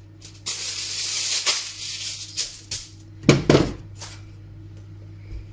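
Kitchen handling sounds: a crinkling rustle for about a second and a half, then several sharp knocks of things set down on the counter.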